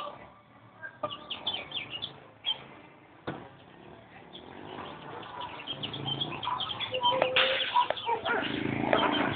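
Short high-pitched chirps and a sharp click about three seconds in, then a motorcycle engine growing steadily louder over the last few seconds.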